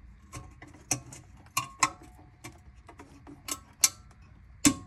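Wire spring retaining clip of an H4 bulb in a Ford Transit Mk5 headlight unit being squeezed and clipped down over the bulb: a string of sharp, irregular metallic clicks, some ringing briefly, the two loudest near the end.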